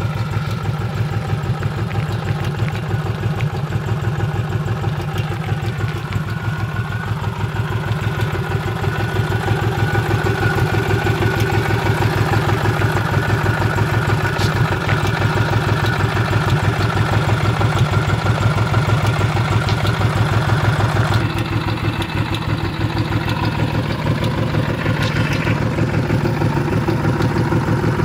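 Honda VTX1800 V-twin motorcycle engine idling steadily with an even pulsing beat. It gets a little louder in the middle and sounds duller about three quarters of the way through.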